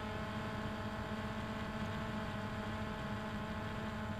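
A steady hum with many overtones, even in level throughout.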